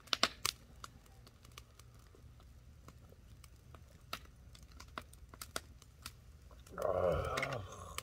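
Irregular crackling and popping from a grill fire with fish cooking on it: sparse sharp clicks, a few louder pops in the first half-second. A voice is heard briefly near the end.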